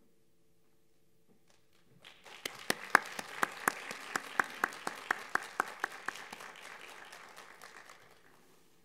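Audience applauding, starting about two seconds in and dying away near the end, with one set of loud, evenly spaced claps at about four a second standing out above the rest for the first few seconds.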